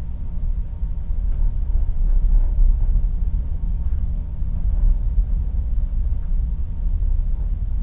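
Steady low rumble of open sea washing past a ship's hull, heard at a porthole, swelling a little twice.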